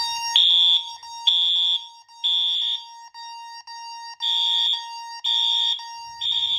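Fire alarm system in alarm after a manual pull station test: horns sounding loud, high-pitched pulses about once a second, with a longer pause about three seconds in, over a continuous steady tone.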